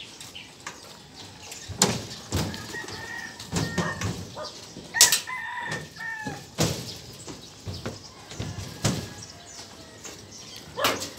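Irregular thuds of footsteps on a steel suspension footbridge deck, the loudest about five seconds in. A rooster crows in the background in the middle.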